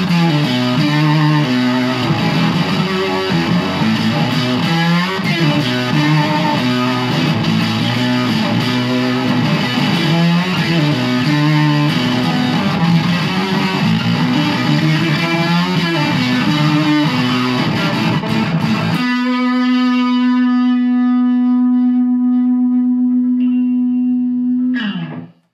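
Overdriven electric guitar played through a tube amp and a Salvage Custom 2x10 cab loaded with Eminence Delta Demon and Ragin Cajun speakers: busy riffing, then one chord held and left ringing, whose pitch dives just before the sound cuts off suddenly.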